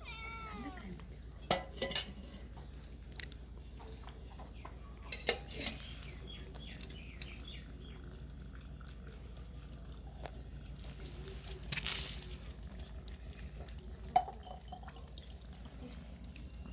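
A kitten gives a short meow that falls in pitch right at the start, with fainter calls a few seconds later. Scattered clinks and knocks, like light objects or dishes being knocked about, sound over a steady low hum, the sharpest one near the end.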